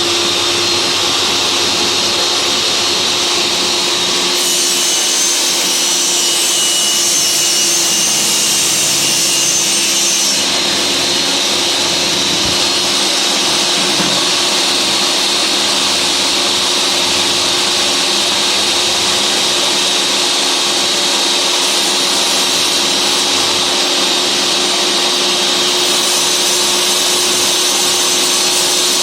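Table saw motor coming up to speed and then running steadily, with a constant high whine over the rush of the spinning blade.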